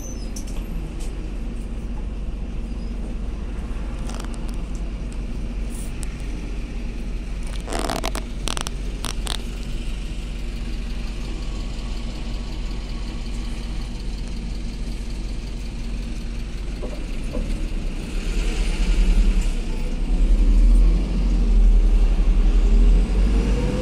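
Cabin noise of a MAZ-203 city bus: the engine and running gear rumble steadily, with a few sharp rattles about eight seconds in. The sound grows louder over the last six seconds, with a rising pitch near the end as the bus picks up speed.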